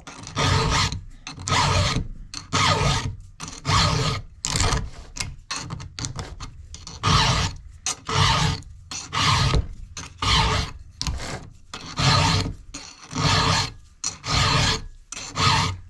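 Round chainsaw file rasping across the steel cutters of a Husqvarna 372XP's chain during hand sharpening: repeated forward strokes, about one a second, with a brief pause near the middle.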